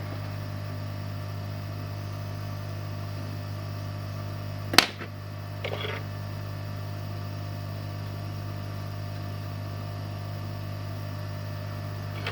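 Steady low electrical hum, with one sharp click about five seconds in and a brief faint scrape about a second later.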